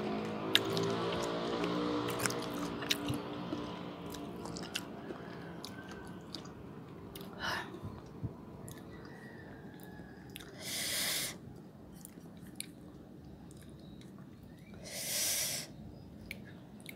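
Close-up chewing and crunching of raw young mango eaten with chilli, with crisp crunches. Two loud breathy rushes of air come about ten and fifteen seconds in.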